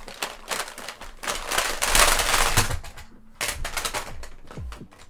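Plastic cassette tapes and their cases clattering and clicking as they are handled and sorted, with a dense rattle about two seconds in and separate clicks after it. A low thud sounds near the end.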